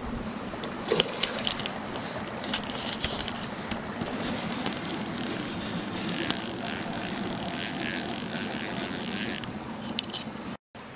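Spinning reel cranked while a hooked pike is played, with a steady high whirring and scattered clicks from the reel. The sound cuts off abruptly near the end.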